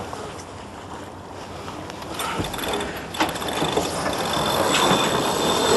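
Sailboat sheet winch ratcheting and clicking as the sheet is hauled in during a tack, over wind and water noise. It grows louder in the second half, where a thin high whine joins it.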